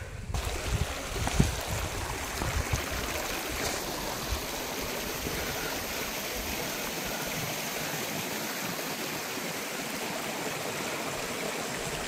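Running river water, a steady rushing. There are a few low thumps in the first few seconds.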